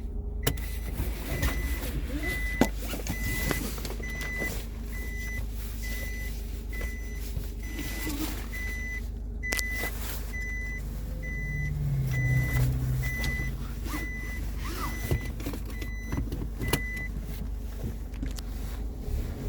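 Seat-belt reminder chime in a 2022 Nissan Navara, beeping about twice a second and stopping about seventeen seconds in. The truck's rear seat-belt warning is faulty and chimes for empty rear seats. Under it runs a steady low rumble, with scattered clicks and knocks.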